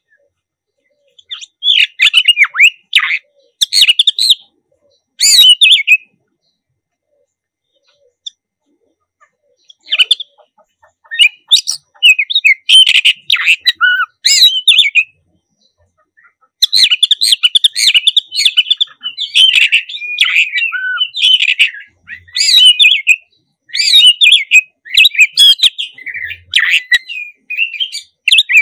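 Oriental magpie-robin, the black-breasted form, singing in quick, varied phrases high in pitch: three short bursts in the first six seconds, a pause, then a longer run of song, almost unbroken through the second half.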